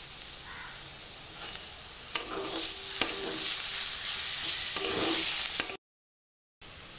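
Metal spatula stirring and scraping potato-cauliflower filling in a steel kadai over the heat, with a frying sizzle that grows louder from about two seconds in and a few sharp clinks of the spatula against the pan. The sound cuts out abruptly near the end.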